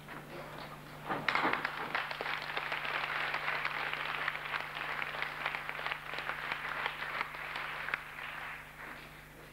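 Audience applauding, starting about a second in and dying away near the end, over a steady low hum.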